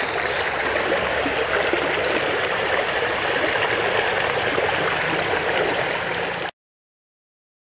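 River water flowing steadily, a constant rushing sound that stops abruptly near the end.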